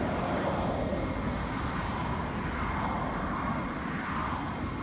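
Jet engines of a Boeing E-3A Sentry running at a distance: a steady rumble with a whine that drifts upward in pitch.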